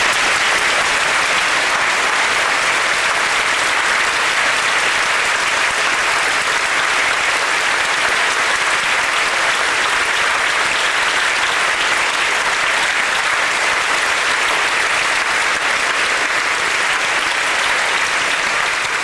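A large audience applauding, a steady, dense clapping that holds without a break and begins to die away near the end.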